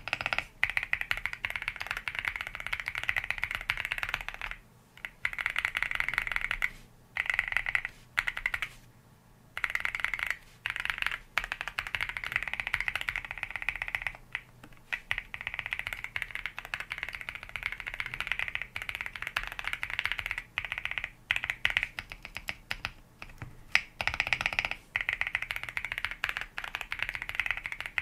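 Typing on a mechanical keyboard fitted with WS Morandi pre-lubed linear switches: fast runs of keystroke clacks broken by short pauses. Relatively quiet for switches that are not silent switches.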